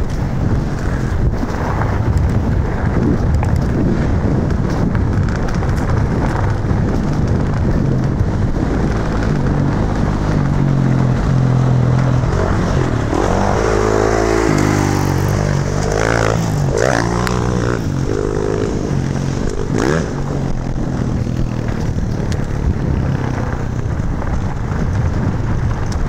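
Steady rush of wind buffeting the microphone and rumble of tyres over a loose dirt and gravel track on a fast e-mountain bike descent. Through the middle a dirt bike engine revs up and down for several seconds.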